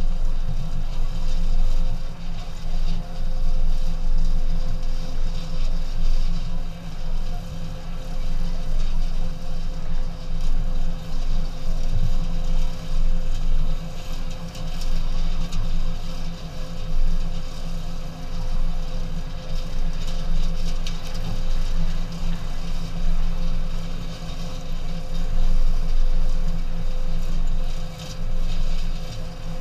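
Vehicle engine running steadily at low speed, a constant low drone with a steady hum, heard from a camera mounted on a pickup truck's hood.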